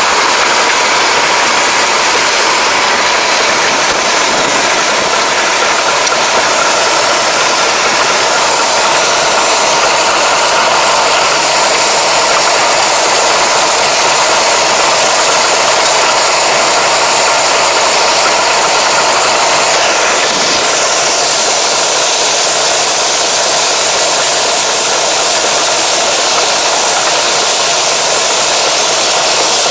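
A tractor and its mounted ridge-forming, mulch-film-laying implement for leaf tobacco running steadily: a loud, even mechanical noise with no break.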